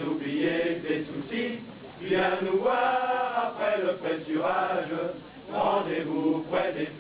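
Background music of voices singing in sustained phrases, with brief breaks about two seconds and five seconds in.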